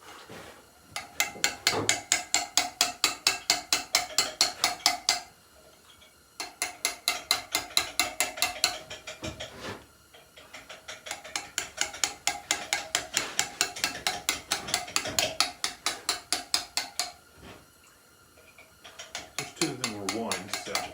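Hammer tapping a chisel to cut letters into a stone headstone: quick, even strikes about five a second with a ringing tone, in runs of several seconds broken by short pauses.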